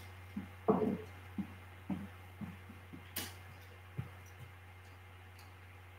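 About ten light knocks and clicks, a couple each second, getting fainter and stopping about two thirds of the way in, over a steady low hum.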